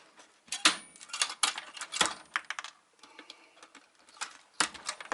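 Rapid clicks and rattling of small metal contacts and plastic parts being pried and pulled out of a UPS outlet housing, a dense flurry in the first half and another sharp click near the end.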